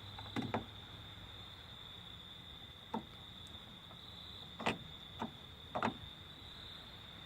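Short sharp clicks and knocks of hand tools being handled: a screwdriver, an extender and an 8 mm hex bit. Two come near the start, one about three seconds in and a cluster around five to six seconds. Behind them runs a steady high insect trill, like crickets.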